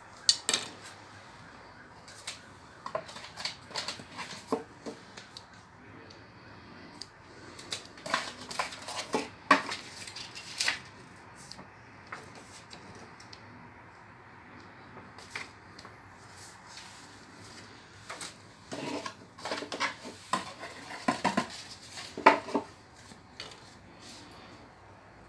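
Hands handling a cardboard box and paper packaging: short rustles, taps and clicks in a few bursts, with a quieter stretch in the middle.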